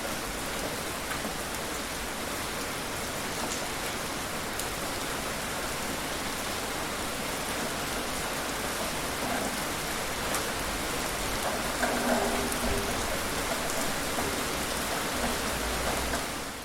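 Steady rainfall hissing on surfaces, with scattered single drops ticking louder. It swells briefly about twelve seconds in and fades out at the very end.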